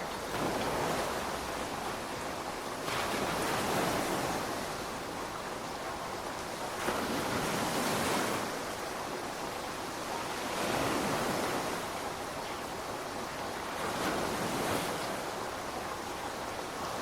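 Ocean surf: waves breaking and washing in, five swells of rushing water about three to four seconds apart over a steady hiss.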